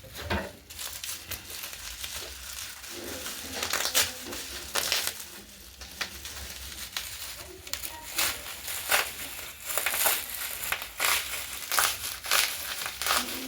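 Hands fitting new suspension rods into a top-loader washing machine: irregular clicks, knocks, scrapes and crinkling from plastic and metal parts being handled and seated.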